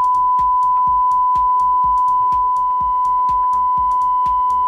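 Steady 1000 Hz sine test tone from loudspeakers driven by a QSC USA 1300 power amplifier in an output power test.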